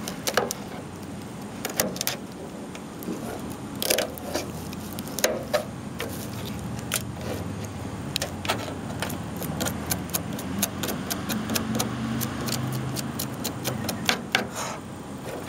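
Knife tip tapping and scraping on a plastic cutting board and against blue crab shell while a crab is cleaned, making scattered sharp clicks and light scrapes at an uneven pace.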